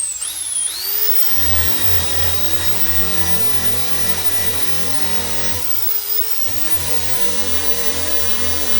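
Dual-action (DA) sander spinning up with a rising whine, then running steadily while sanding surface rust off car body panels; about six seconds in its speed dips briefly under load and picks back up.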